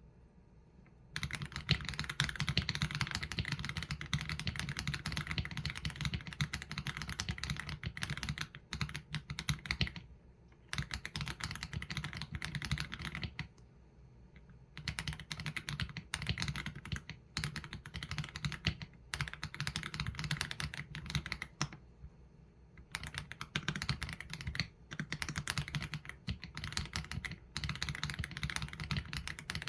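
Typing on an AULA F87 Pro mechanical keyboard with Leobog Graywood V3 linear switches and PBT keycaps: fast, dense keystrokes in runs, broken by short pauses. The typing starts about a second in.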